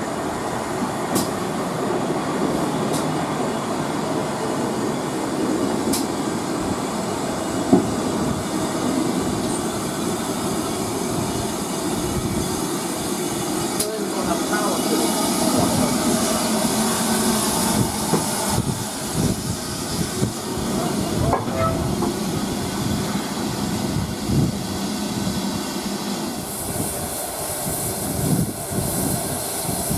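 Train running along the track with a continuous rumble and repeated clicks and knocks from the wheels and rail joints. A high hiss rises about halfway through and again near the end.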